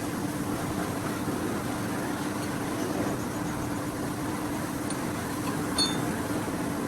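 A machine running steadily with an even hum, and a single sharp metallic clink near the end.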